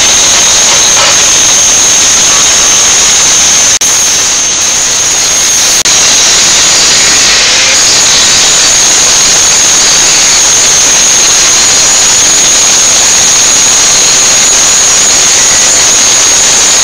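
Handheld angle grinder with an abrasive disc grinding a sheet-steel bumper: a loud, steady high whine over the hiss of the disc on metal. About four seconds in it eases off for a couple of seconds, then bites back in.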